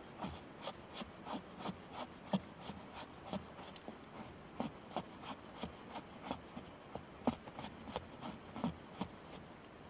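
A hand tool working wood: a string of short, uneven scraping and knocking strokes, about two to three a second.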